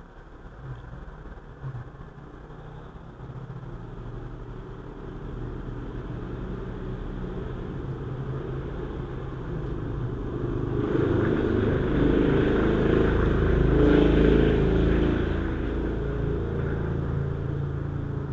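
A passing motor vehicle's engine rumbling, swelling steadily louder to a peak a little past the middle, then fading.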